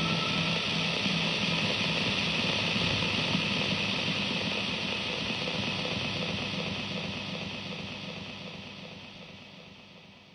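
Electronic music reduced to a synthesized noise wash, a hiss like static, with no clear notes; it fades out steadily over the last few seconds as the piece ends.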